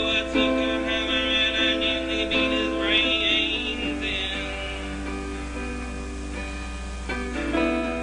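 Steel-string acoustic guitar strummed in chords, stroke after stroke. About halfway through the strumming eases off and a chord is left ringing, then the strokes start again near the end.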